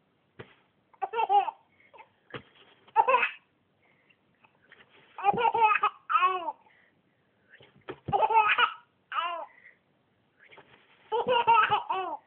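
Baby laughing in bouts every two or three seconds, with short quiet gaps between.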